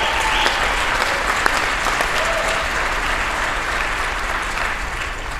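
Large audience applauding, the clapping dying away near the end.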